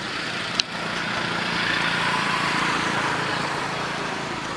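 An engine running steadily, growing louder through the middle and easing off near the end, with a sharp click about half a second in.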